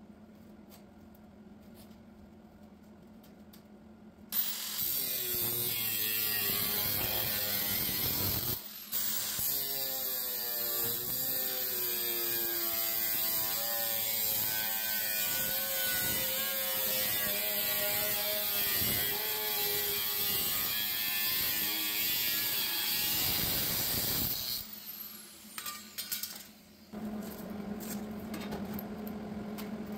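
A handheld power tool running under load for about twenty seconds, its pitch wavering as it works. It starts about four seconds in, breaks off briefly near nine seconds and stops near the end, leaving a steady low hum.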